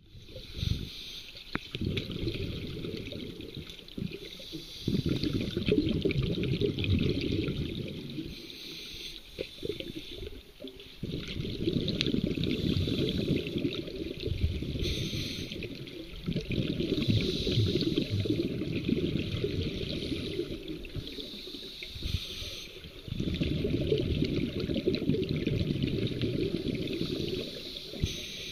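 Scuba diver breathing through a regulator underwater. About seven exhalations each release a low rush of bubbles lasting a few seconds, and a short hiss from the regulator is heard on each inhalation between them.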